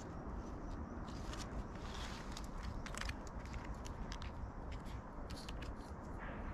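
Light rustling and scattered short clicks from a freshly cut artichoke head being handled and turned among the plant's leaves, over a steady low rumble.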